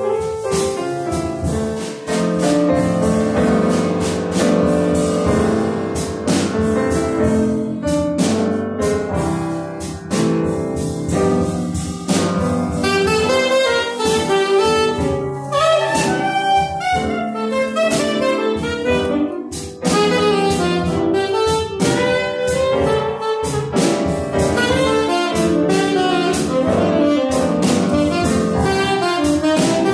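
Live jazz trio of tenor saxophone, piano and drum kit playing a slow tune, the saxophone carrying the melody over piano chords and cymbal strokes.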